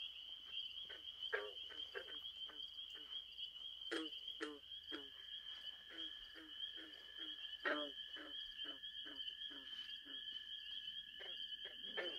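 Night woodland chorus: a steady high insect trill, joined about five seconds in by a second, lower steady trill, over short low animal calls repeated two or three times a second, a few of them louder.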